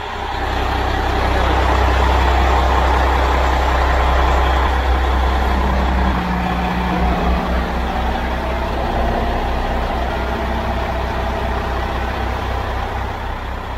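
Loud, steady engine-room machinery noise from a yacht running underway. About six seconds in, a Cummins Onan marine generator is restarted and joins with a steady hum and a low throb. The generator is being restarted after cutting out again from an electrical fault.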